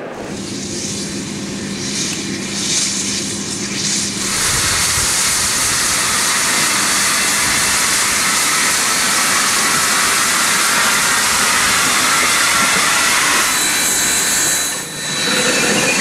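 Union Pacific Challenger-class 4-6-6-4 steam locomotive No. 3985 passing close: a loud, steady rush and hiss of steam and running gear that sets in suddenly about four seconds in, after quieter sound at first.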